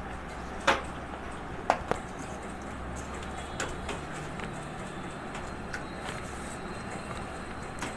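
A hand mixing raw chicken pieces in a wet yogurt marinade in a steel bowl, with a few sharp clicks or knocks, the two loudest about a second apart near the start, over a steady low hum.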